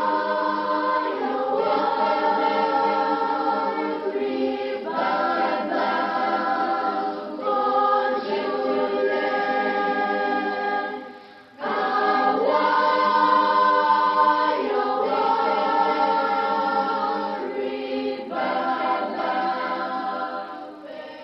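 Choir singing held chords that change every second or two, with a brief break about eleven seconds in, trailing off at the end.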